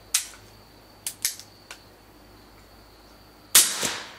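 Suppressed .45 ACP 1911 pistol firing through a SeaFire Diamond silencer used dry. A sharp shot comes just after the start and a louder, longer shot near the end, with a few light clicks between them.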